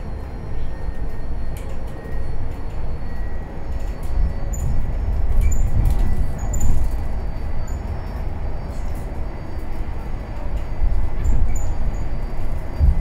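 Cabin noise of a Mercedes-Benz eCitaro battery-electric city bus under way: an uneven low rumble from tyres and road, with small rattles and clicks from the interior fittings and a faint steady whine.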